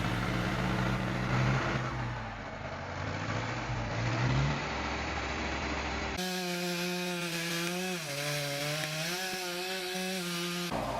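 Engine-driven saw cutting wood under load. A low engine note rises about four seconds in, then an abrupt change about six seconds in brings a steadier, higher motor note that dips as it bogs in the cut and recovers.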